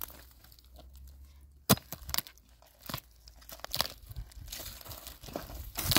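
A long-handled hoe striking and prying into dry, stony soil, with crunching and tearing of earth and dry roots. One sharp strike nearly two seconds in is the loudest, followed by several lighter knocks and scrapes.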